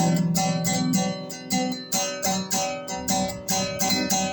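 Acoustic guitar strummed in a steady rhythm, about three strokes a second, during an instrumental passage of a song.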